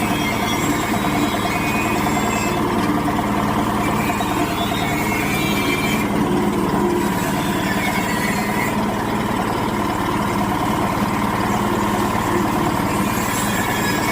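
Motor-driven areca nut splitting machine running at a steady speed, its engine giving an even drone.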